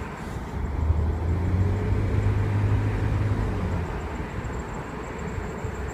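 Low pitched tone from a BMW E46's brakes, lasting about three seconds and fading out near the four-second mark, over steady road noise.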